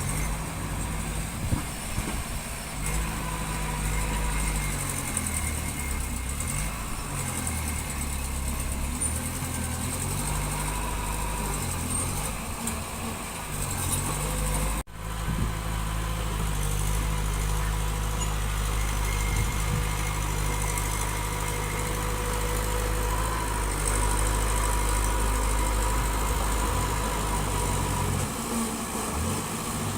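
Diesel engine of heavy earthmoving machinery running, its speed rising and falling several times as the machine works, with a brief break about halfway through.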